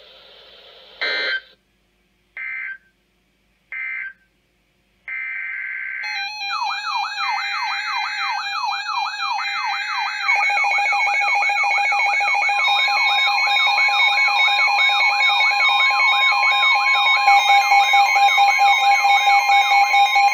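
NOAA Weather Radio emergency alert tones. Three short screechy digital data bursts come about a second and a half apart, then a longer burst. Then several weather radios' alert alarms start up: a fast repeating siren-like warble, joined by steady and pulsing beeps and a long steady attention tone, signalling an incoming warning.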